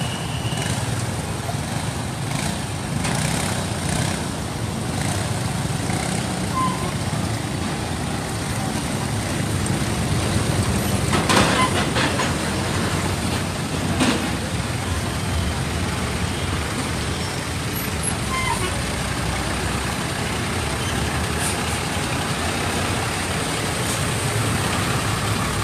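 Roadside traffic: engines of passing motorbikes and trucks running steadily, with a short burst of louder noise about eleven seconds in.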